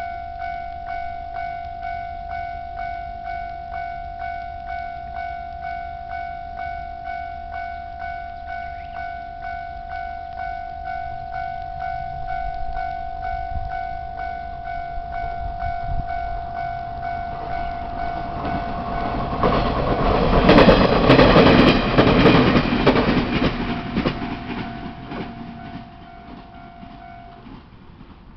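Japanese railway level-crossing alarm ringing in a steady repeating tone, about two strokes a second, while a train approaches, runs through the crossing and fades away. The train's noise builds to its loudest about two-thirds of the way through, and the crossing alarm stops shortly before the end as the crossing clears.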